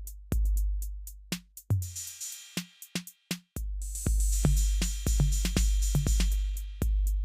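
Electronic background music with a drum-machine beat over deep bass. The bass drops out for about two seconds in the middle under a hissing cymbal wash, then the full beat comes back in.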